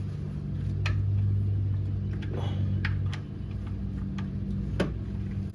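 A few sharp, scattered clicks from a ratchet snugging a fitting during an oil change, over a steady low hum.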